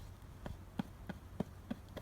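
A quick series of about six light taps or knocks, roughly three a second.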